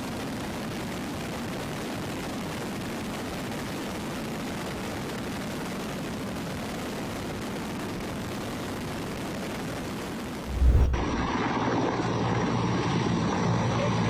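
Steady drone of aircraft engines and rotors in flight. About ten and a half seconds in, the sound changes abruptly with a low thump to a louder drone with a low steady hum.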